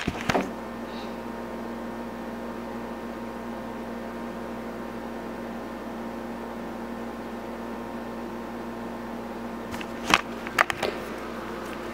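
Steady electrical hum with a few held tones, as from a fan or appliance running in the room. A few knocks of the camera being handled come right at the start and again about ten seconds in, as it is picked back up.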